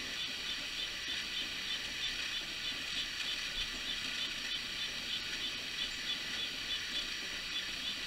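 Red-breasted nuthatch calling over and over, a fast, even run of short high notes about four a second, over a steady hiss.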